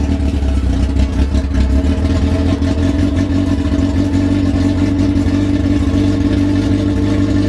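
2004 Yamaha YZF-R6's inline-four engine idling steadily and loud, freshly started after a rebuild.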